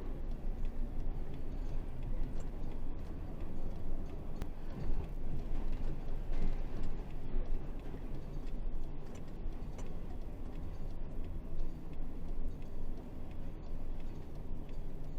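Isuzu 8x4 heavy truck's diesel engine running under way, a steady low rumble with occasional light ticks and rattles.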